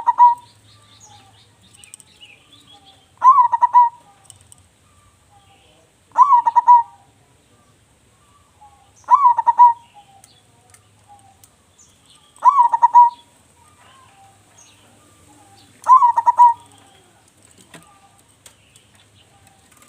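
Zebra dove (perkutut) cooing its song in a big voice: a short phrase repeated regularly about every three seconds, six times.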